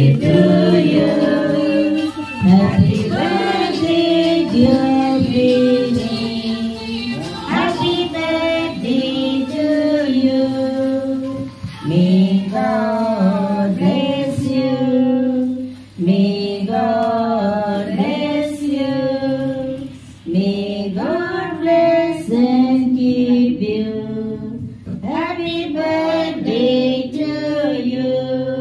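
A group of women and children singing a song together, one woman's voice carried through a microphone, in phrases of about four seconds each.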